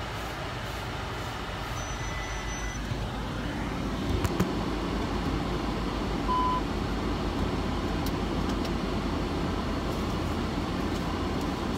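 Steady road and engine noise inside a car cabin while driving. A few clicks come about four seconds in, and a short high beep about six seconds in.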